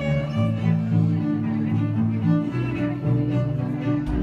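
Amplified electric violin bowed in a low register, playing held notes that change every half second or so.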